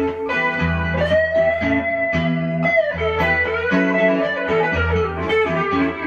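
Electric guitar playing a lead solo over a low bass part. About a second in, one note is slid up into and held for nearly two seconds before the line moves on.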